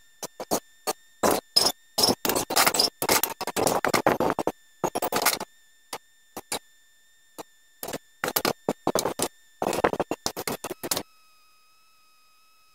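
A hammer striking the steel of a mountain bike's suspension fork and headset, metal on metal in quick runs of blows, with a ringing tone between them. The headset is stuck and is being knocked loose. The blows stop about eleven seconds in, leaving only the ringing.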